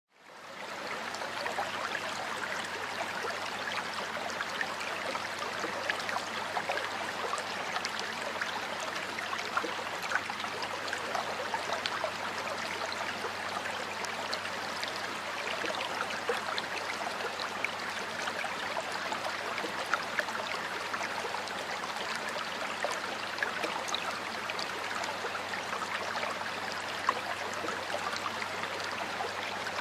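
Water flowing steadily in a stream, an even rushing and babbling with small splashes, fading in over the first second.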